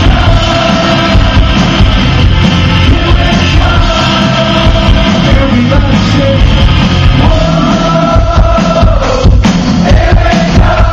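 Live rock band playing at full volume with sung vocals, heard from within a concert crowd. Long held melodic notes run over a dense mix of drums and guitars.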